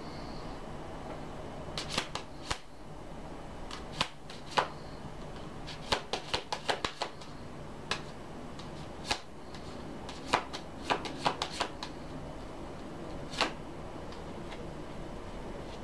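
A deck of message cards being shuffled by hand: a scatter of sharp card clicks and snaps, thickest about six to seven seconds in, over a faint steady low hum.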